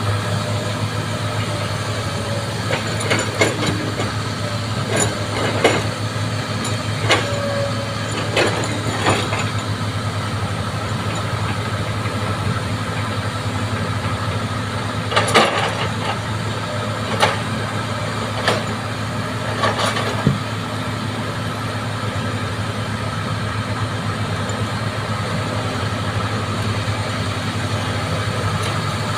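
Bulldozer's diesel engine running steadily at a low drone, with a series of sharp metallic clanks at irregular intervals through the first two-thirds.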